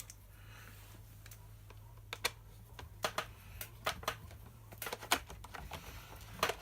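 Irregular light clicks and taps, a dozen or so, of a small screw and hand tool being worked into a chainsaw's housing.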